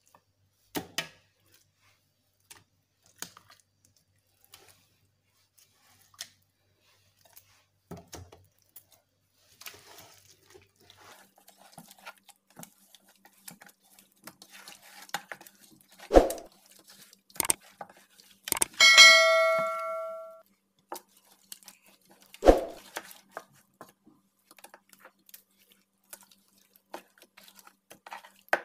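Hands working lamb pieces through a wet spice marinade in a metal pot: soft wet squelches and scattered knocks against the pot, with a few sharper knocks. About two-thirds of the way through, the pot rings once when struck, a metallic ring that dies away over about a second and a half.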